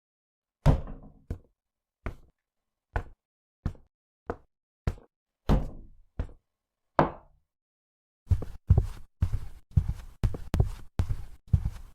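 A series of dull knocks: single hits about two-thirds of a second apart, then a quicker run of them from about eight seconds in.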